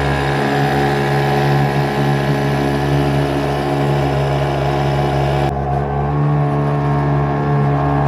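Hankai 3.6 hp two-stroke outboard motor running steadily at one speed, a small single-cylinder engine much like a weed eater's.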